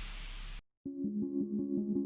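Background music: one track fading out and cutting off abruptly just after half a second in, a brief silence, then a new synthesizer piece starting with a steady, evenly pulsing note pattern.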